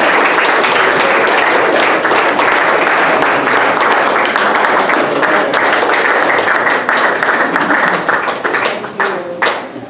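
Audience applauding, dense clapping that thins out near the end to a few last claps.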